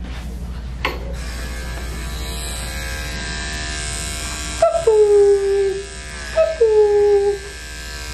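Corded electric dog clipper with a guard comb, humming steadily. From about halfway, a small dog whines in two cries of about a second each, slightly falling in pitch: she dislikes being clipped.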